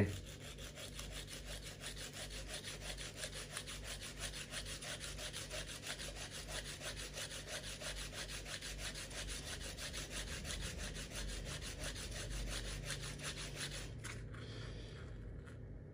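A small metal valve part rubbed back and forth on sandpaper, a rhythmic scraping at about four strokes a second, grinding its end flat and shorter. The strokes stop about two seconds before the end.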